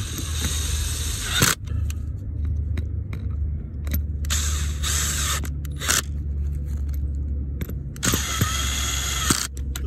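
DeWalt cordless drill turning a nut driver in several short runs, tightening the bolts of an irrigation valve bonnet. With the drill set to its lowest torque, the bursts end in the clutch ratcheting as each bolt snugs down. The longest runs come at the start and near the end.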